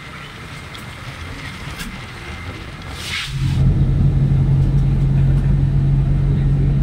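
Car driving on a wet road, heard from inside the cabin. Moderate road noise, then a short hiss a little past the middle, after which the sound grows much louder into a steady low rumble with a constant hum.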